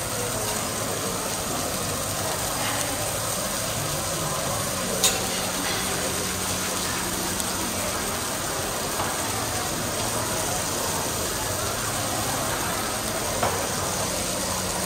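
Meat slices sizzling on a teppanyaki hot plate, a steady hiss, with a sharp click about five seconds in and another near the end.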